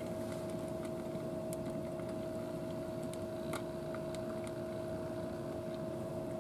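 A steady machine hum holding two even tones throughout. Over it come faint, scattered clicks, the sound of a cat crunching dry cat food.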